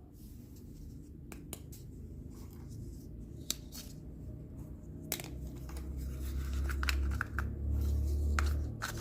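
Close-up handling of small toy pieces: scattered sharp clicks and scraping, with a low rumble from about halfway that grows louder.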